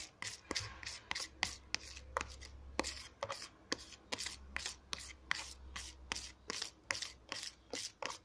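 Metal spoon stirring a thick paste of dish soap and baking soda in a plastic container, clicking and scraping against the container's sides and bottom about three times a second.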